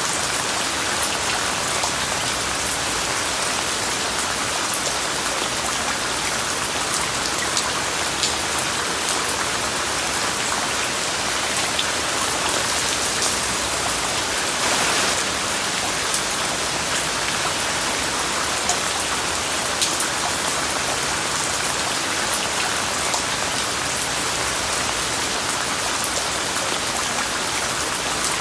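Steady rain falling, an even hiss with scattered ticks of single drops striking a surface, and a brief louder swell about halfway through.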